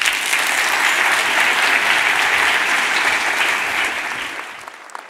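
Audience applauding, a dense steady clapping that begins as the talk ends and fades away near the end.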